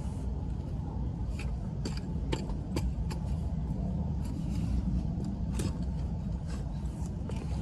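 Garden fork digging over turfed soil: the steel tines go in under a boot and lever the clods up, giving scattered sharp clicks and crunches at irregular moments. A steady low rumble runs underneath.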